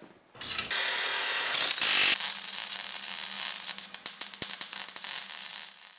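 Sound effect of a ratchet mechanism: a loud rush, then fast ratcheting clicks that thin out toward the end, over a low steady hum.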